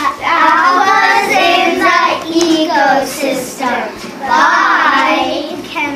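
A young girl's voice held in long, loud, wavering notes that glide up and down in pitch, like singing.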